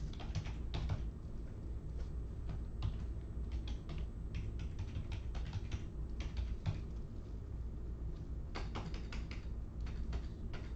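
Typing on a computer keyboard: irregular runs of key clicks, with a steady low hum underneath.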